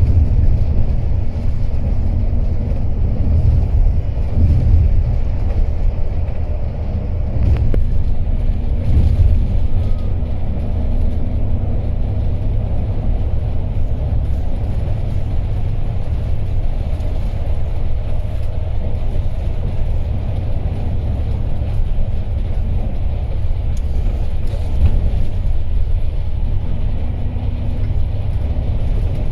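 Coach bus on the move: a steady low rumble of engine and road noise.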